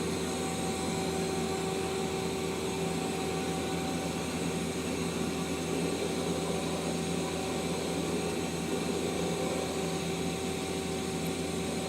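Mazak Quick Turn Nexus 200MS CNC turning center running under power: a steady machine hum with a few constant whining tones, unchanging throughout.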